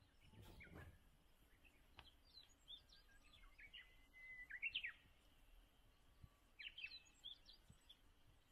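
A small songbird singing faintly in two short phrases of quick chirps and whistles, the first about two seconds in and the second near the end, over a quiet outdoor hush.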